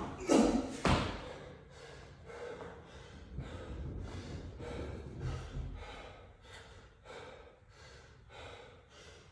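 A person breathing hard and fast after a set of pull-ups, about two loud breaths a second that slowly ease off. Near the start there is a heavy thud as he drops from the bar to the floor.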